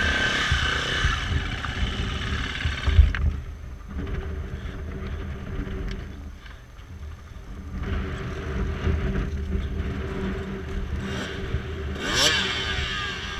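Enduro motorcycle engine running steadily at idle, with one hard knock about three seconds in. Near the end a dirt bike revs up sharply and climbs.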